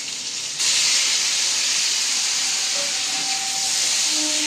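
Crushed elephant apple (chalta) frying in hot oil in a steel kadai: a steady loud sizzle that jumps louder about half a second in.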